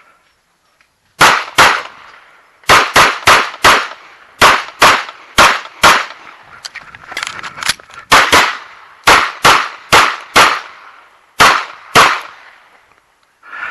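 Rapid pistol fire at a practical-shooting stage: about twenty sharp shots, most fired as pairs about a third of a second apart, with short gaps between the pairs. The shooting starts about a second in and stops near the end.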